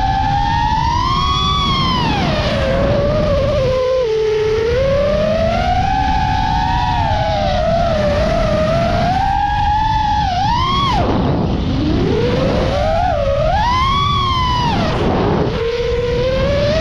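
Mini FPV quadcopter's brushless motors whining, the pitch sliding up and down with the throttle. It swings sharply down and back up about ten seconds in, and again about fourteen seconds in.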